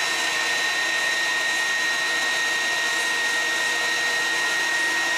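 Electric wood planer running steadily with a high whine, with no change in pitch or level.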